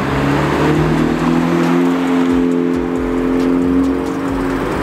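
Honda Civic Type R FK8's 2.0 L turbocharged four-cylinder running through an AWE valveless full exhaust as the car drives past. The engine note climbs as it accelerates, holds, then eases off near the end.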